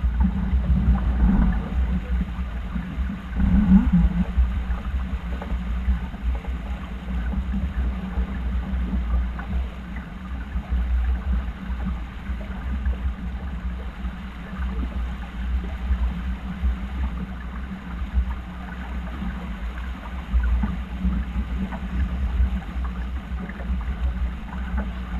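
Water rushing and sloshing along a sailing yacht's hull, with wind buffeting the microphone as a steady uneven rumble.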